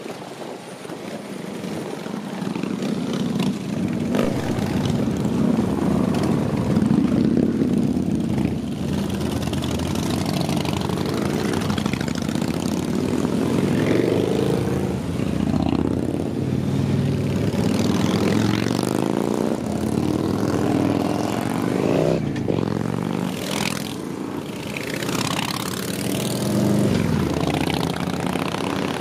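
A column of mostly Harley-Davidson V-twin motorcycles riding past one after another at low speed. The engines run continuously, their pitch rising and falling as each bike goes by, and the sound grows louder over the first few seconds.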